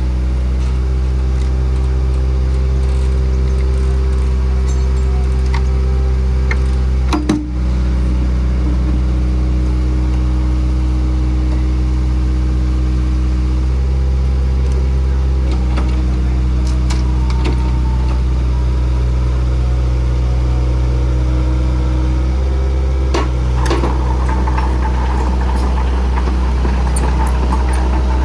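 A heavy diesel engine running steadily with a deep, even hum. Its tone shifts slightly a few times, with a brief click about seven seconds in.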